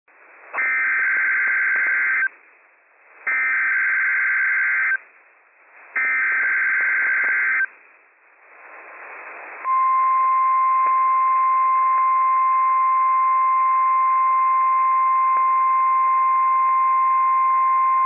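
NOAA Weather Radio Emergency Alert System test broadcast: three bursts of SAME header data, a harsh two-pitch digital screech, each about a second and a half long with about a second of faint radio static between. About nine and a half seconds in, the single steady 1050 Hz warning alarm tone starts and holds.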